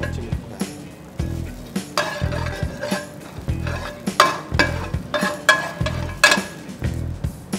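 A metal spatula and spoon scrape and clink against a nonstick frying pan as chopped green chillies are stirred in hot oil, with a light sizzle. The clinks come thick and sharp from about two seconds in. Background music with a steady beat plays underneath.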